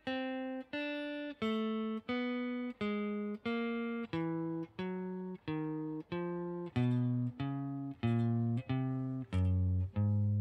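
Electric guitar played one picked note at a time in an even pulse of about two notes a second: a four-finger fretting exercise worked down across the strings, so the pitch steps lower overall. The last notes, near the end, are the lowest and loudest.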